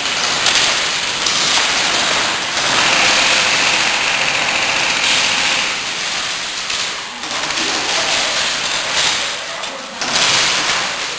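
Continuous rapid clatter of airsoft guns firing, with BBs pattering like rain on plywood barricades, and players' voices mixed in.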